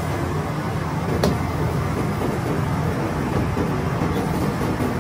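Steady low drone of a restaurant kitchen's wok stove and exhaust hood, with one sharp clink about a second in.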